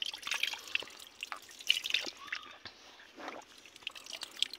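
Water dripping and trickling from cupped hands dipped in a shallow, muddy spring-fed hole: irregular small splashes and plinking drops.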